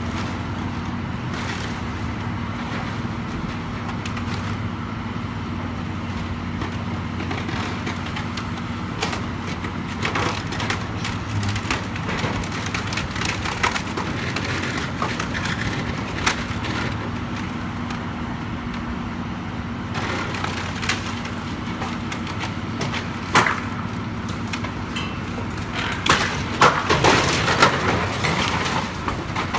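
A heavy machine's engine running steadily while wood cracks, splinters and crashes as a structure is torn down. The cracking comes in spells, with the loudest crashes near the end.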